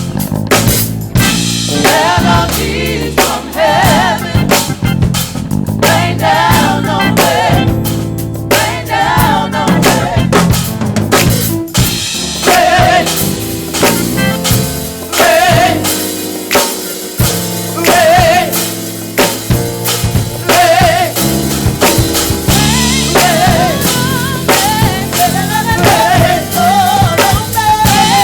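Live gospel church band playing an up-tempo groove, the drum kit to the fore with sharp snare hits and rimshots over bass drum, bass and keys, with a wavering melody line above.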